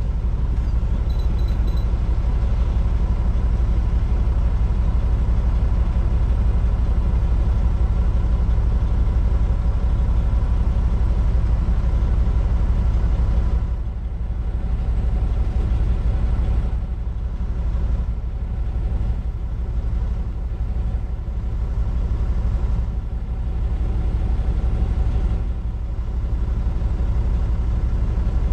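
Heavy-haul semi truck's diesel engine running steadily while hauling an oversize load. It eases off a little about halfway through and then rises and falls.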